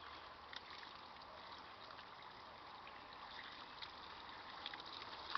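Garden hose spraying water: a faint steady hiss with scattered light spattering ticks.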